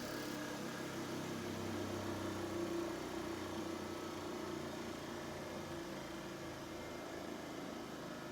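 Bauer 8-inch bench grinder coasting down after being switched off: the motor and its two grinding wheels still spinning freely, giving a steady whooshing hum, like a jet plane, that gradually fades as the wheels slow.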